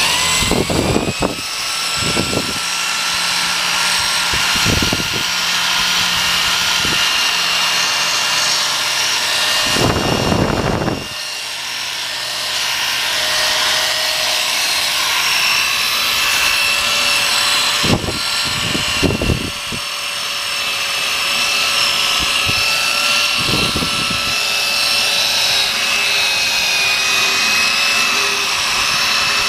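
Electric drill spinning a foam polishing pad against a plastic headlight lens, buffing in polishing compound at the polishing stage of a headlight restoration. A steady high motor whine that wavers a little in pitch, with a few short thumps along the way.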